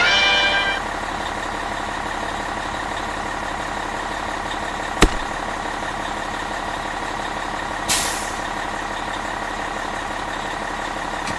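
Steady heavy-vehicle engine drone. A short pitched toot fades out just under a second in, a sharp click comes about five seconds in, and a brief air-brake-like hiss comes near eight seconds.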